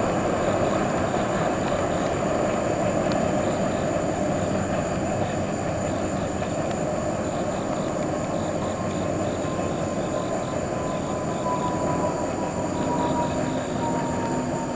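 Steel wheels of a long, empty ethanol tank train's last cars rolling and clattering over the rails as the train moves away, the noise easing off slowly. About halfway through, a faint thin whine comes in and slides slightly lower in pitch.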